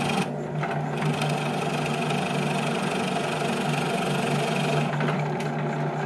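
Gamma bench drill press motor running with a steady hum while a sharp flat spade bit bores into a wooden board. The cutting noise starts about a second in and eases off near the end.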